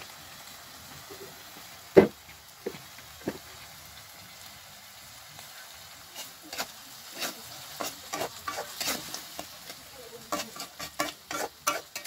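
Grasshoppers frying in a metal wok with a steady faint sizzle. There is one sharp knock about two seconds in, then from about halfway a metal spatula scrapes and clacks against the wok in quick repeated strokes as the grasshoppers are stirred.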